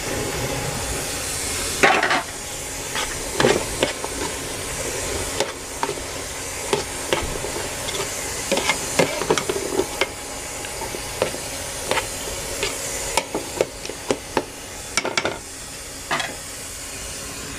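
Boiled chickpeas being stirred into frying masala in a metal pot: irregular clinks and scrapes of the spoon against the pot over a steady sizzle.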